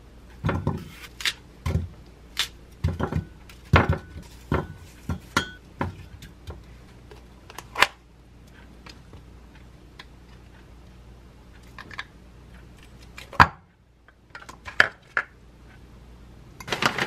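Kitchen food-prep sounds: a knife cutting an apple by hand, with pieces dropping into a glass cup in a string of clinks and knocks. After a quieter stretch come a few knocks of a plastic tub against a bowl as thick yogurt is tipped out, and a rustling starts near the end.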